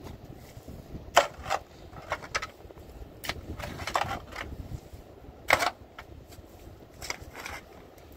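A steel shovel digging into wet, stony mud: a series of irregular scrapes and knocks of the blade, the loudest about a second in and again past five seconds.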